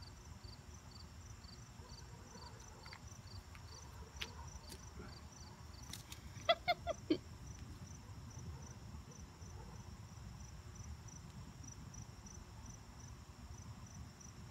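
Crickets chirping steadily in a high, even pulse of about two a second. About halfway through, a quick run of five short pitched calls stands out as the loudest sound, with a couple of faint clicks before it.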